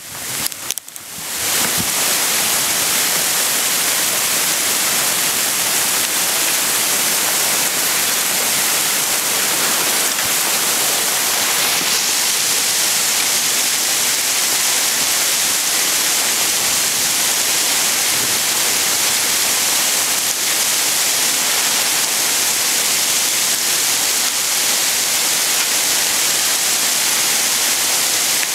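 Small hail falling steadily, a dense, even hiss of hailstones landing on the ground and surroundings, after a brief dropout at the very start.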